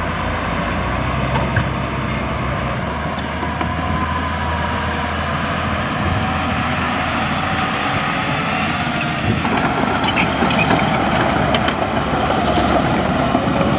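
Diesel engine of heavy earthmoving machinery running steadily, growing louder and rougher about nine seconds in.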